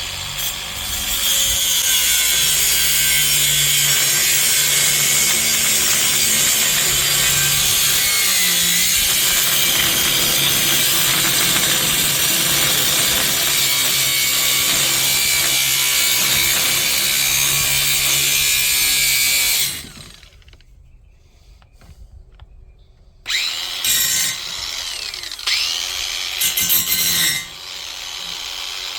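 A power tool slitting a length of metal conduit lengthwise down the middle. It runs steadily for about twenty seconds and stops; a few shorter, uneven bursts of cutting and handling follow near the end.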